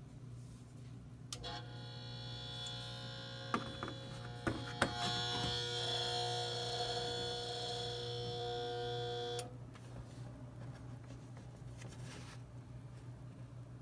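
Kenmore Frigidaire refrigerator compressor buzzing: under a steady low hum, a loud, many-toned buzz starts about a second and a half in and cuts off suddenly about eight seconds later, with a few clicks partway through.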